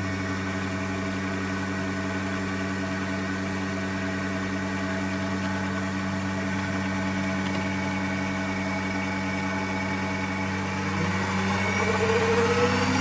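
Proxxon mini metal lathe running with an aluminium bar spinning in its chuck: a steady motor hum with a stack of evenly spaced tones. Near the end a higher tone rises and the sound grows louder.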